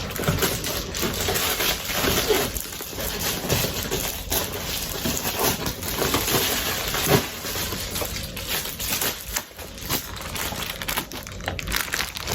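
Shipping packaging being torn open and handled: continuous crinkling and rustling with many sharp crackles.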